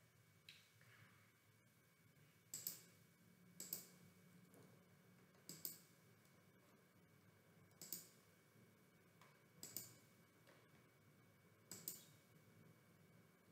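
Computer mouse clicking, single and double clicks every second or two.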